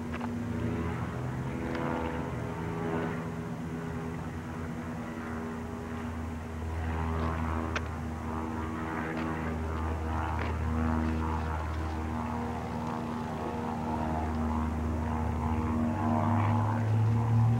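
A steady mechanical drone with a low hum, from an engine or motor, swelling a little near the end.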